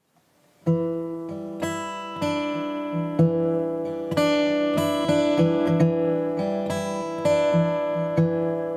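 Background music of a strummed acoustic guitar, starting suddenly under a second in after silence.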